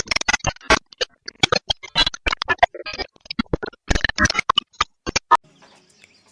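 A rapid, irregular run of sharp clicks and knocks, stopping abruptly a little over five seconds in.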